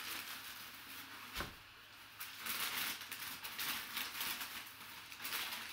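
Brown packing paper rustling and crinkling as hands wrap it around a basketball, in uneven swells, with one soft knock about a second and a half in.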